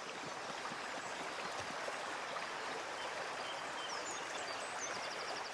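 Fast-flowing stream rushing steadily. A small bird's high, thin trilling song joins in about four seconds in.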